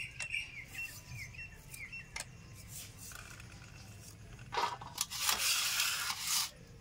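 Onion being cut and peeled by hand with a curved sickle-like knife: a few light cuts and clicks, then a louder rasping noise for about two seconds starting about four and a half seconds in. A bird chirps a few times at the start.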